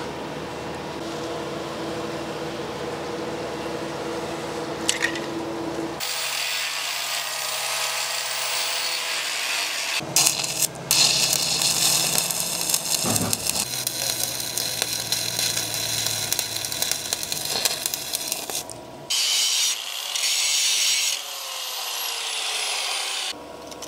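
Electric arc welding on the steel hull plate overhead: the arc crackles and hisses steadily from about six seconds in, drops out briefly near ten seconds, and breaks into short bursts before stopping near the end.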